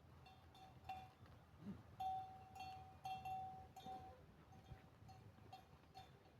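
Faint, irregular clinking of bells worn by grazing sheep, all at the same pitch, busiest and loudest about two to four seconds in.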